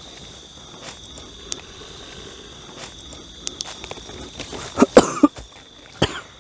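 Night insects trilling steadily with a high, even tone, over rustling and snapping of bamboo and undergrowth as people push through the thicket. A sudden loud scuffle about five seconds in, and another sharp one about a second later.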